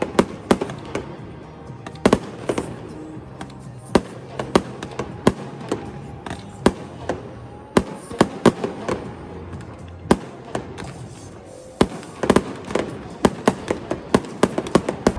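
Fireworks going off: many sharp bangs and crackles at an uneven pace, coming thicker near the end, with music playing underneath.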